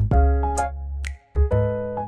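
Background music: an instrumental with piano-like keyboard chords over a deep bass and light percussion, kicking in suddenly at the start and dropping out for a moment a little after a second in.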